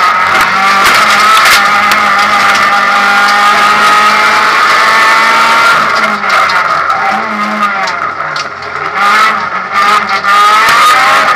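Honda Civic rally car's four-cylinder engine running hard at high revs, heard from inside the cabin. About six seconds in the revs drop and waver for a few seconds as the throttle comes off, then climb again near the end.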